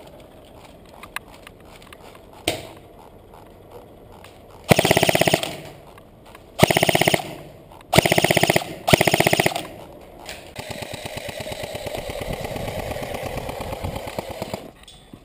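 Electric airsoft gun firing four short full-auto bursts, each a fast, even rattle of shots, about five to ten seconds in, after a single sharp crack. A quieter, steady rattle follows for about four seconds.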